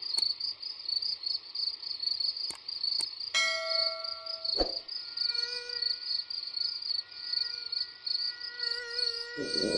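Crickets chirping in a steady, rapid, pulsing trill under a night scene. About three seconds in, a couple of mouse clicks are followed by a bell-like ding lasting about a second. From about halfway, a faint, wavering, high mosquito wing whine comes in.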